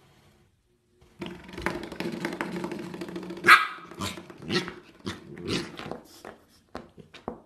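Corgi puppy growling low and steadily, then barking once loudly and going on with a string of short, high yaps at a spring door stopper.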